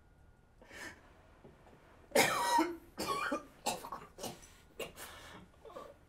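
A man coughing in a fit: a short cough, then a loud rasping cough about two seconds in, followed by a run of shorter coughs.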